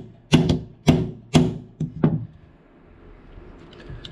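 Small brass hammer striking a punch to drive a drift pin out of a rifle receiver: about five sharp blows roughly half a second apart, each ringing briefly, stopping about two seconds in, followed by faint handling clicks.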